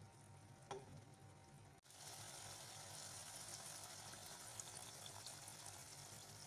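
Chicken pieces with onion in a little sauce cooking in a pot on medium heat, giving a faint sizzle with small crackles. The sizzle starts suddenly about two seconds in.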